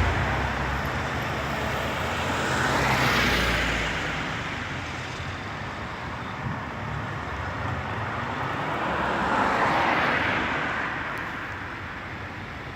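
Road traffic: two vehicles pass, the first swelling up and fading about three seconds in, the second about ten seconds in, over a steady hum of traffic.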